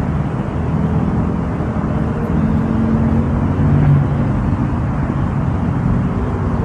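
A vehicle's motor running steadily, a continuous low hum.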